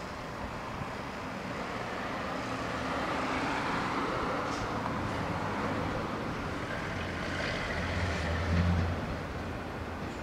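Steady road-traffic noise that slowly grows louder, with a low engine hum swelling about eight seconds in as a vehicle passes.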